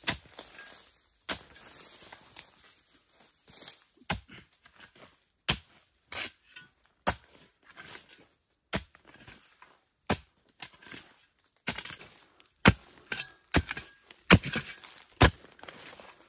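Long-handled digging hoe chopping into earth, a sharp strike every second or two with faint crackling of soil and dry leaves between strokes. The strikes are loudest near the end.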